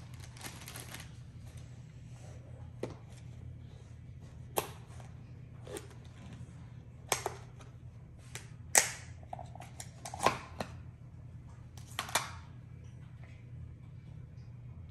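Plastic tub lid being worked and pried open by hand: a string of sharp plastic snaps and clicks, loudest about nine seconds in, with plastic bag rustling in the first second.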